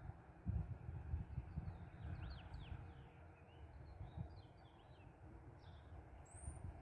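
Faint birds chirping, a few quick downward-sweeping calls among them, over irregular low rumbles of wind on the microphone that are strongest in the first couple of seconds.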